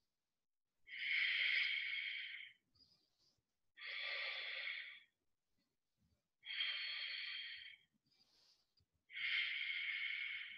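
A woman breathing hard and audibly through the throat while holding boat pose, a core-strength hold. There are four long, hissing breaths, about one every two and a half seconds, with silence between them.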